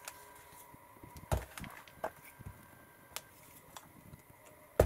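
Paper and craft supplies handled on a tabletop while pieces are glued down: a few scattered light knocks and clicks, with one sharper click near the end.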